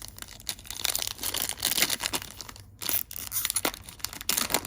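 A trading-card pack's wrapper crinkling and tearing as it is ripped open, in a run of quick crackles.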